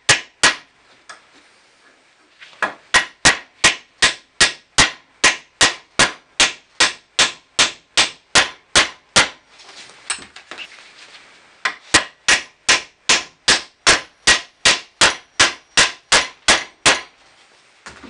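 Hammer tapping a new hinge pin into a 1967 Mustang's cast-steel lower door hinge: quick, even metal-on-metal taps, about two and a half a second, in two long runs with a pause of a couple of seconds between them, after a couple of taps at the start.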